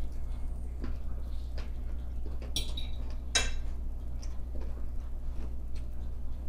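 A metal fork clinks against a ceramic bowl twice, about two and a half and three and a half seconds in, with small mouth sounds of chewing. A steady low hum runs underneath.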